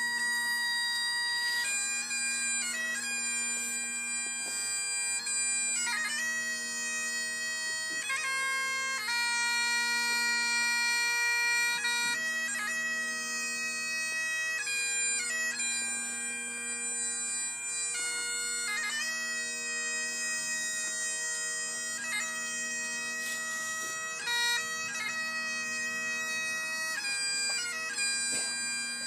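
Bagpipes playing a slow tune: long held melody notes over a steady, unbroken drone.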